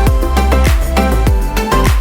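Background music with a steady beat: deep, pitch-dropping bass kicks about two to three times a second under pitched melody.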